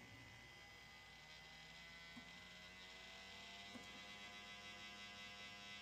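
Faint steady electrical hum, with several thin tones that slowly rise in pitch through the middle.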